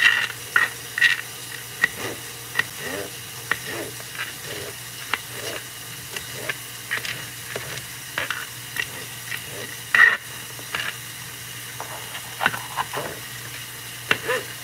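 Kitchen knife chopping a green bell pepper on a plastic cutting board: irregular sharp taps of the blade hitting the board, the loudest about ten seconds in.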